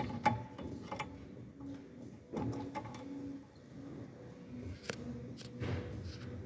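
Scattered small clicks and scrapes of plastic and metal as a halogen headlight bulb, its wiring connector still attached, is unclipped and drawn out of a car headlight housing.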